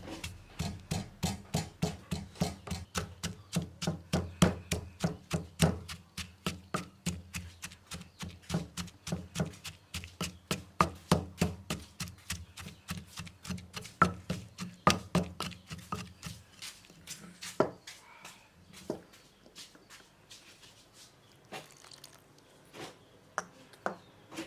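Knife chopping food on a wooden cutting board in quick, even strokes, about three a second, over a low hum. After about sixteen seconds the hum stops and the chopping slows to occasional single chops.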